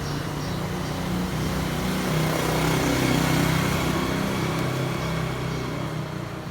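A motor vehicle's engine running: a steady low hum with hiss over it, swelling towards the middle and easing off near the end.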